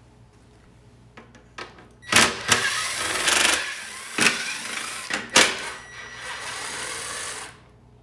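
Cordless drill/driver running in bursts, backing screws out of a lawn mower engine's cover, with several sharp clacks. It starts about two seconds in and stops abruptly near the end.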